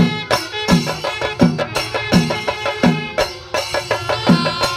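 Chenda melam: a group of chenda drums beaten with sticks in a fast, even rhythm, with a heavy stroke about every three-quarters of a second. Curved brass kombu horns come in with a held tone near the end.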